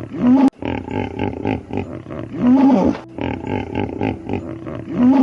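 An animal's call, the same recording of about two and a half seconds played over and over with a short break between passes. Each pass ends in a brief pitched cry.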